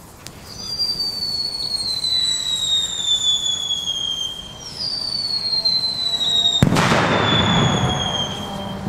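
Screaming Eagle whistle fireworks whistling, two long high whistles one after the other, each slowly falling in pitch. About two thirds of the way through, a sudden loud rushing hiss breaks in and lasts about two seconds.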